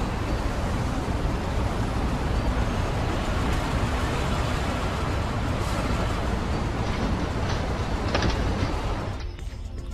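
Car sound effect: a steady engine and road rumble as the car pulls up, with a few clicks near the end as the door opens. It falls away about nine seconds in, leaving soft background music.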